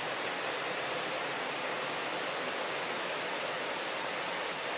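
A loud, steady, even rushing noise like running water, unchanging throughout.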